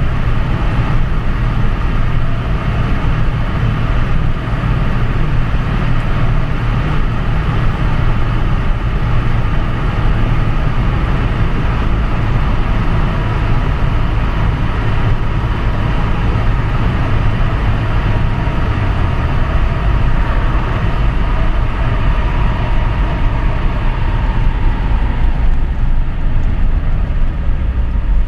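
Wartburg 1.3's VW-built 1.3-litre four-cylinder engine running at steady motorway speed, heard inside the cabin together with tyre and wind noise. A faint whine drifts slightly lower and fades near the end.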